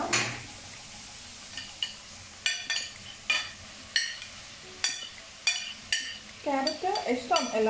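Onions sizzling steadily in a hot wok, then a steel spoon clinking sharply against a plate and the pan about once or twice a second as carrot pieces are scraped into the wok. A voice speaks near the end.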